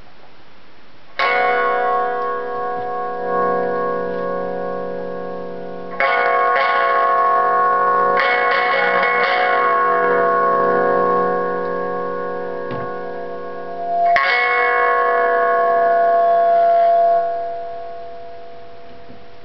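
Homemade cigar box guitar with a piezo pickup, amplified: its strings are struck four times and each chord rings on for several seconds, the last one fading out near the end.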